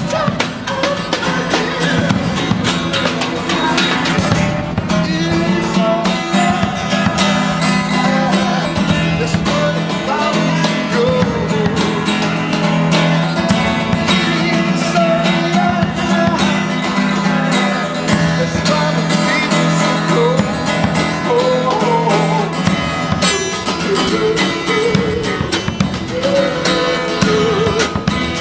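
Live acoustic music: a guitar played with a fast, steady strummed rhythm, backed by percussion, with a melodic line rising and falling over it.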